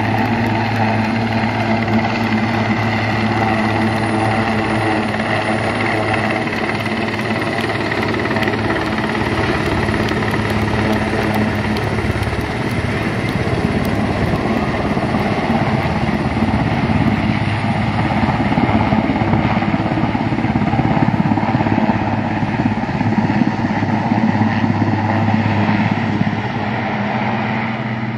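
Large turbine military helicopter flying low: steady turbine whine with the beat of its rotor blades. The rotor beat grows rougher and louder from about the middle as it passes close overhead, then eases a little near the end as it moves away.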